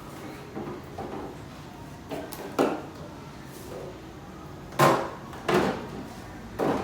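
Several knocks and clunks of bottles and food containers being handled and set down while a refrigerator is emptied, the loudest about five seconds in.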